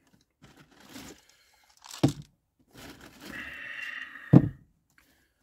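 Handling noises as small items are moved and set down: a knock about two seconds in, a second or so of rustling, then a louder thump near the end.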